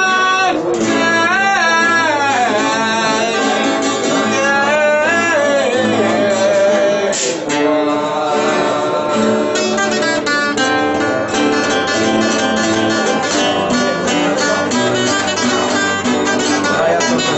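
Maltese għana fil-għoli: a man singing a high, drawn-out, wavering verse over acoustic guitars. About seven seconds in the voice ends and the guitars carry on alone with quick, busy picking.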